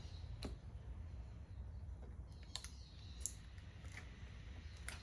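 A few separate light clicks and taps of a replacement laptop battery being handled and pressed into place in an open MacBook Pro's case, over a steady low hum.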